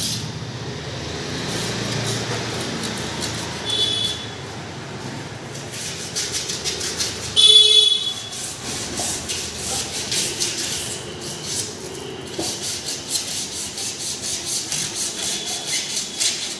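Sandpaper rubbed by hand on a car tyre's rubber sidewall, in short rasping back-and-forth strokes, about two to three a second in the second half. A car horn toots briefly about halfway through, the loudest sound; a fainter toot comes near four seconds in.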